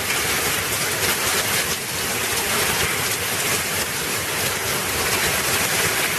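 Torrential rainstorm: very heavy rain pouring down in a loud, steady, even hiss of water.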